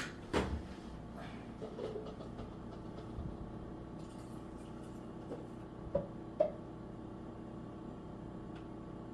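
A few light knocks of a blender jar against a cup as a smoothie is poured, over a steady low hum. Two of the knocks come close together about six seconds in.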